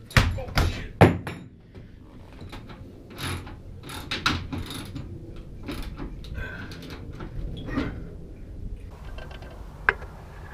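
A hand tool working the roof bolts of a box truck's aluminium roof from inside, with three sharp metallic knocks in the first second, then scattered clicks and scrapes. Near the end the sound gives way to steady wind noise, with one sharp click.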